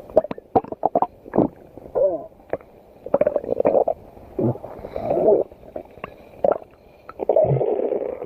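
Stomach growling: irregular gurgles and rumbles broken by sharp pops and clicks, with a few squeaky gurgles sliding down in pitch about two seconds in.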